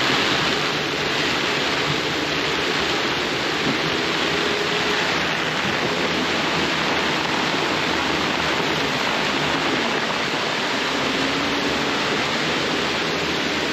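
Heavy rain and strong wind from a squall beating on a sailboat's deck and canvas covers: a steady, unbroken hiss.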